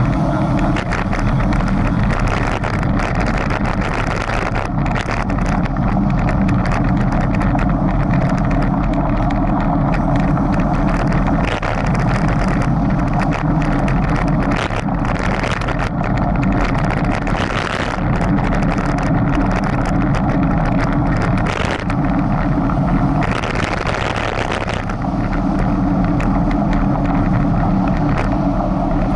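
Steady engine and road noise of a running motor vehicle, a constant low hum under a broad rushing noise.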